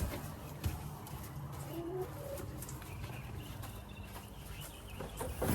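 Hens giving a few soft, low clucking calls about two seconds in, over a steady low hum, with a couple of light knocks, the loudest near the end.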